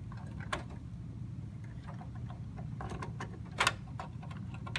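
Scattered plastic clicks and handling noise as a power supply's 24-pin cable is worked into its socket on a motherboard, the loudest click about three and a half seconds in.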